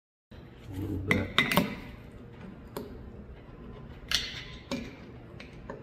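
Metal screwdriver tip clicking and scraping against the cast thermostat housing and thermostat while an O-ring is pried down into its groove. It cuts in after a brief silence, with several sharp, irregular metallic clinks over a low steady background.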